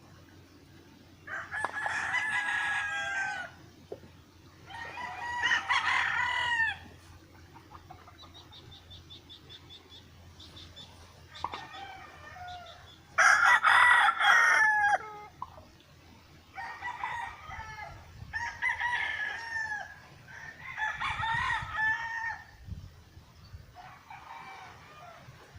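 Rooster crowing again and again, about eight crows of one to two seconds each, the loudest about halfway through. A short run of rapid faint ticks comes about a third of the way in.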